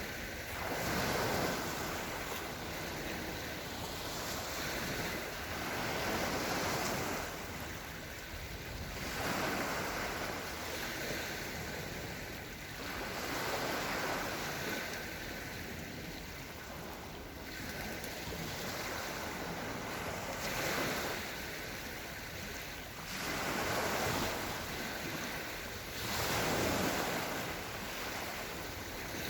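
Small Black Sea waves washing gently onto the shore, each one a rush of noise that swells and fades every few seconds.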